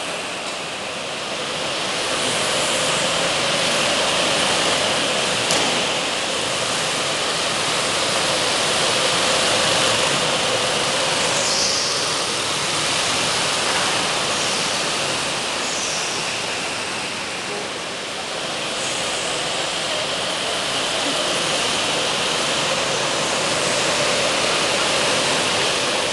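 Several go-karts' small engines running as the karts lap an indoor track, merging into a steady drone that rises and falls a little as they pass, in an enclosed hall.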